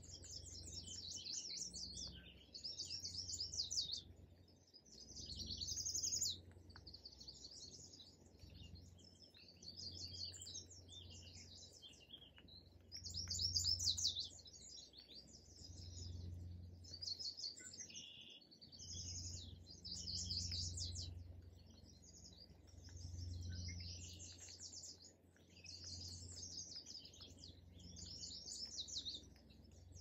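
Songbirds singing in leafy woodland: quick, high trilled phrases repeat every two to three seconds, with softer chirps in between, over a faint low rumble.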